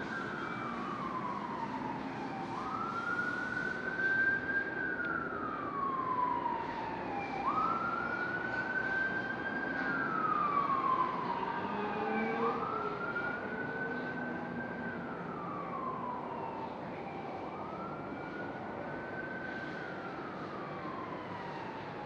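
Emergency-vehicle siren wailing: a tone that rises slowly, holds at the top and falls away, repeating about every five seconds, over a steady background hum.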